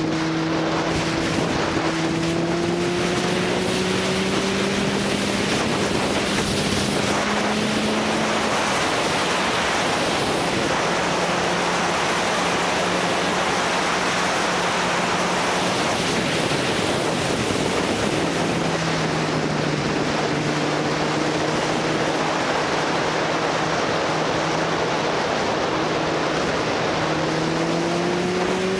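Motorcycle on the move: a steady rush of wind over the microphone with the engine's hum underneath. The engine note rises slowly as it accelerates a few times, fading out for a moment twice along the way.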